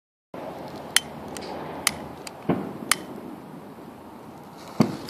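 Handling and lighting of a ground bloom flower firework on the ground: a few sharp clicks, roughly a second apart, and one duller knock over steady low background noise. The firework is not yet spinning or hissing.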